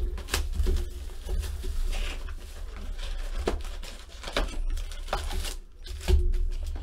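A cardboard trading-card hobby box is opened and its foil card packs handled, giving scattered taps, rustles and crinkles over a low steady hum.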